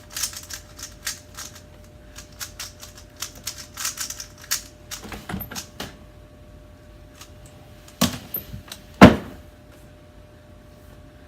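Rubik's cube being turned quickly in the hands: a rapid, dense run of plastic clicks and clacks for about six seconds that then thins to scattered clicks. Two heavier knocks come about eight and nine seconds in, the second the loudest.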